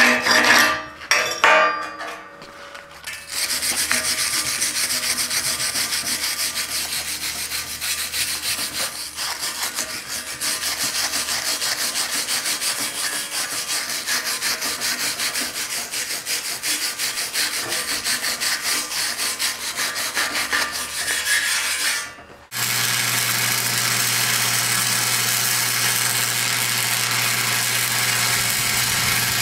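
Wire brush scrubbing slag off a flux-core weld bead on steel plate, in rapid even strokes, starting about three seconds in. About 22 seconds in it stops abruptly and a flux-core wire-feed welder arc takes over, a steady buzzing hiss with a low hum.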